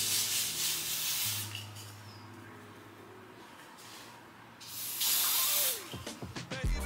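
Aerosol spray hissing in two long bursts, one at the start and another about five seconds in, over quiet background music.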